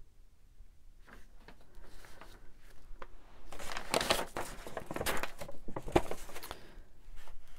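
Sheets of paper rustling and sliding as they are picked up, sorted and laid down, with a short sharp tap about six seconds in.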